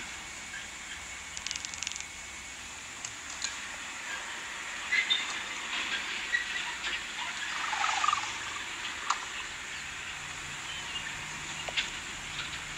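Steady hiss of outdoor ambience, with scattered short clicks and faint chirps, and a busier patch of mixed sound past the middle.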